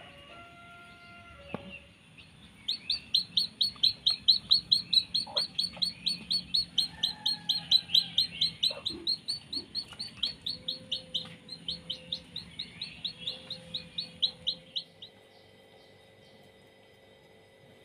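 A chicken chick peeping over and over, high-pitched, about three or four peeps a second, each peep dropping slightly in pitch; the peeping stops abruptly near the end.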